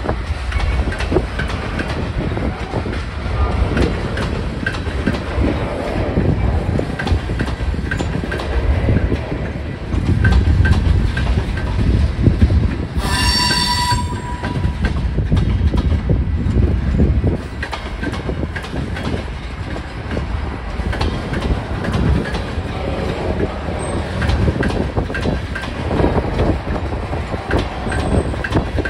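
Freight cars rolling past: a steady rumble of wheels with rapid clicking over the rail joints, and one high-pitched squeal from the wheels lasting about a second near the middle. Wind buffets the microphone.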